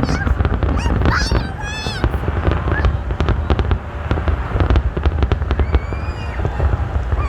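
Fireworks display: dense, rapid crackling and popping over a steady low rumble.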